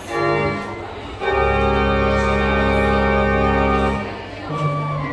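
Organ music: a few short notes, then a full chord with a deep bass held for nearly three seconds that stops about four seconds in, and a shorter note near the end.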